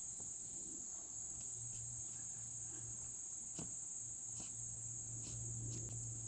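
Steady, unbroken high-pitched drone of insects, with a faint low hum beneath it and a few soft taps.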